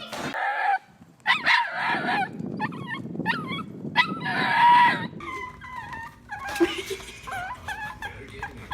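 A dog whining and yipping in a string of wavering, high-pitched cries, with a short break about a second in.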